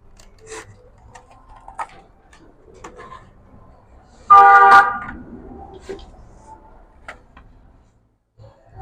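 Light clicks and knocks of the amplifier's panel and parts being handled, and about four seconds in a loud, short honk of a vehicle horn lasting under a second.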